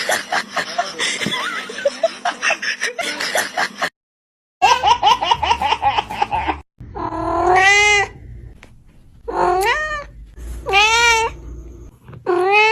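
Cats caterwauling: a series of long, wavering yowls that rise and fall in pitch, each under a second, in the latter part. Before them comes a few seconds of rapid clattering noise, then a brief cut to silence.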